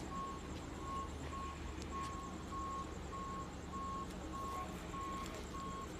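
A vehicle's electronic warning beeper sounding a steady, evenly repeating high beep, about two beeps a second, over a low steady hum.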